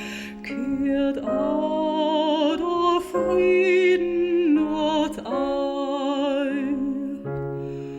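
A slow song with instrumental accompaniment: a singing voice holding long notes with vibrato over a sustained low note.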